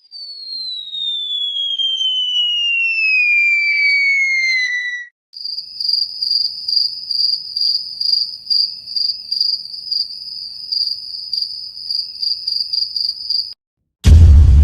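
Sound effects in sequence: a whistle sliding steadily down in pitch for about five seconds, then crickets chirping in a steady high pulse about twice a second, the meme 'awkward silence' effect. Near the end a loud boom cuts in.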